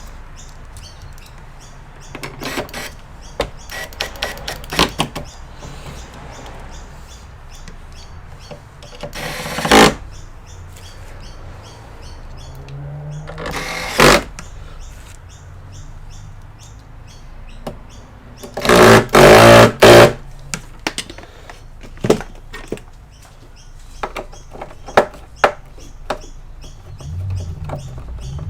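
Scattered clicks, taps and knocks of plastic and metal parts being handled and pried during the disassembly of an all-in-one PC, with a louder clatter about two-thirds of the way through.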